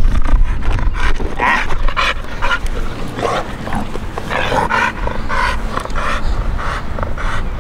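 Pit bull-type dog panting hard after bite work, quick breaths about twice a second.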